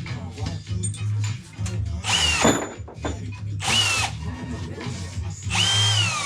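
A power tool run in three short bursts, its whine dropping in pitch as each one winds down. Bass-heavy music plays underneath.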